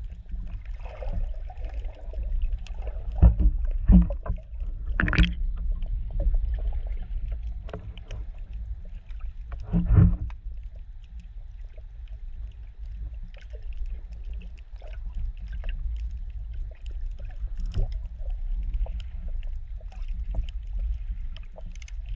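Muffled underwater sound heard through a GoPro's sealed Super Suit housing: a steady low rumble of moving water, with a few dull knocks about three to five seconds in and one louder knock about ten seconds in.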